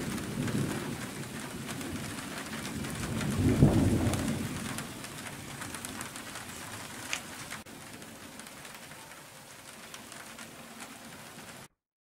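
Steady rain hissing during a thunderstorm, with rolling thunder: one rumble at the start and a louder one swelling about three and a half seconds in, then dying away. The sound cuts off abruptly near the end.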